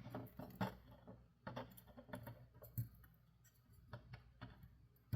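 Irregular small clicks and taps from handling a wire and metal battery terminals in a plastic toy's battery compartment while soldering, about a dozen spread unevenly, over a faint steady low hum.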